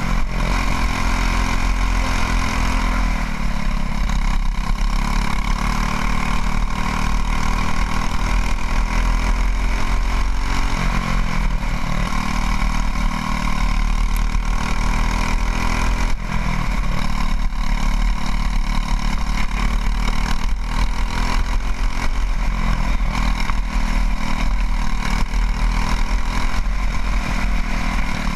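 Racing go-kart engine running hard at race speed, heard from on board the kart; its pitch drops when the driver lifts and brakes into corners, several times, and climbs again as the kart accelerates out.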